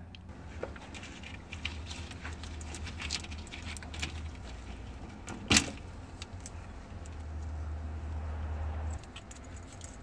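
Jangling keys and small rattling clicks as wiring is handled by the hydraulic pump of an RV leveling system, with one sharp click about five and a half seconds in, over a low steady hum that drops away near the end.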